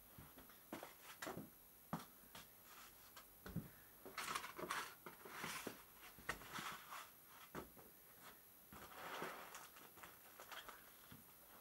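Faint handling noise of foam packing blocks being lifted out of a wooden crate and set down: scattered light knocks and clicks, with a few short rustling scrapes.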